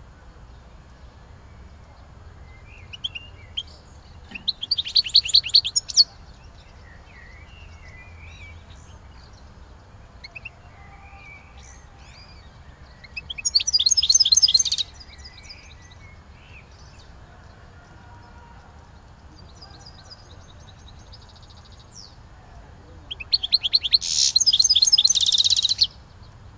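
A songbird singing in three loud phrases of rapid, high trills about ten seconds apart, with faint chirps between them.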